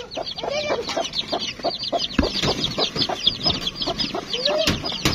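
Young chicks peeping nonstop, short high cheeps sliding down in pitch several times a second, with a mother hen clucking now and then. A few sharp knocks about two seconds in and near the end.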